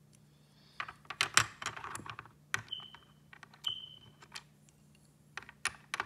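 Hard plastic puzzle pieces clicking and clattering against a plastic peg board and against each other as they are fitted on and shifted by hand, in several short bursts of clicks.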